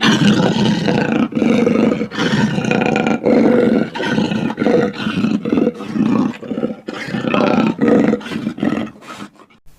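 Loud animal roar sound effect for the Abbagoochie creature: a long run of rough roaring pulses, about two a second, starting suddenly and dying away about nine seconds in.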